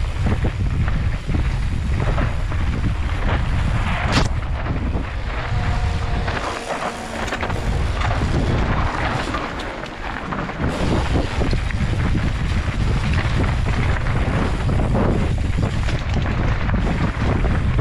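Mountain bike descending a dry, rocky dirt trail, heard from a helmet-mounted camera: wind rumbling on the microphone over the crunch of tyres on dirt and stones and the rattle of the bike over bumps.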